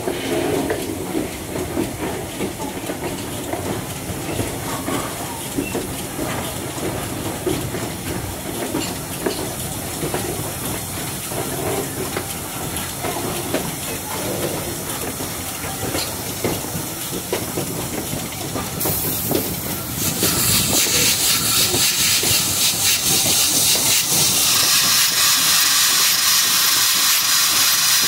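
Steam-hauled passenger train running on the rails, with the rumble and clatter of the cars. About two-thirds of the way through, a loud steam hiss starts and keeps on.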